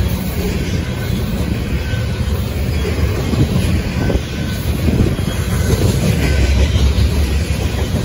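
Freight train tank cars rolling past close by: a steady low rumble of steel wheels on the rails, with a clatter over the rail joints.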